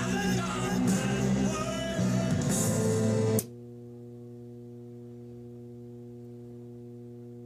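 Clairtone boombox playing music with singing and guitar, which cuts out suddenly about three and a half seconds in, leaving only a steady electrical hum: the audio dropout that is the boombox's sound issue.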